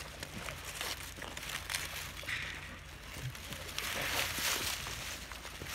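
Goats pulling at and chewing green garlic stalks: scattered crunching and crackling with rustling of the stems, busiest about four seconds in.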